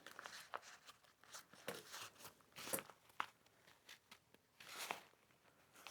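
Faint, irregular rustling and a few small sharp clicks of backpack fabric and webbing straps being handled and pinned in place.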